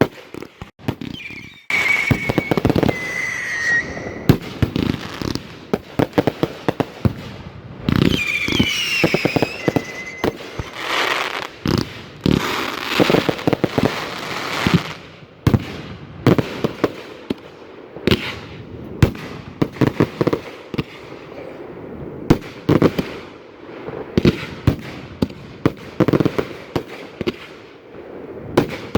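1.3G display fireworks going off in rapid succession: many sharp bangs and crackling bursts, densest in the first half, with whistling tones twice in the first ten seconds.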